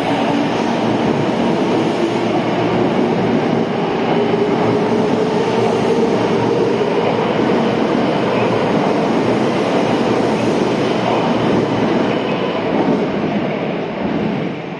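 Tokyo Metro Tozai Line electric train accelerating out of the station: wheel and rail noise with a motor whine rising in pitch as it gathers speed, fading near the end as the last car pulls away.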